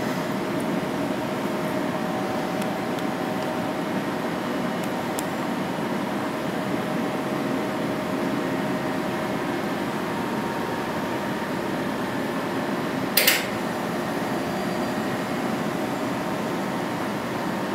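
Steady electrical hum of vending machines' cooling fans and compressors, with a few faint steady tones over the hiss. One sharp clack about thirteen seconds in.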